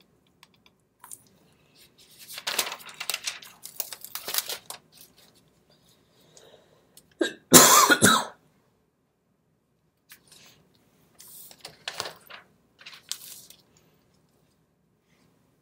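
A man coughing in several bouts, the loudest and sharpest about halfway through, with weaker coughs near the end.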